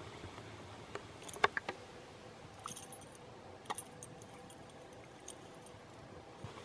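Light clinks and clicks of small hard objects being handled: a handful of separate ticks spread over a few seconds, the sharpest about a second and a half in.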